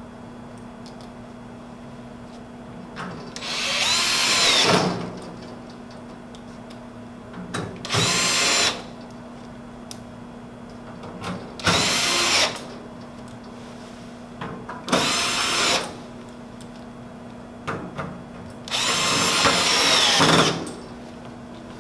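Cordless screwdriver driving Torx 30 screws into an enclosure sidewall: five short whirring runs a few seconds apart, the first and last longest, with the motor's pitch sagging at the end of some runs. Small clicks fall between the runs.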